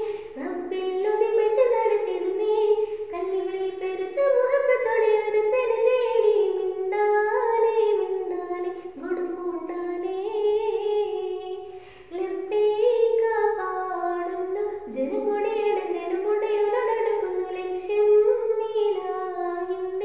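A teenage girl singing solo and unaccompanied, one voice carrying long, flowing melodic lines with a short breath pause about twelve seconds in.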